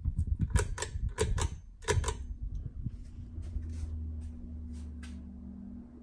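Hunter Silent Breeze ceiling fan's pull-chain switch being worked: a quick run of sharp metallic clicks, loudest in the first two seconds and thinning out by about five seconds. Under and after them, the fan motor runs with a steady low hum.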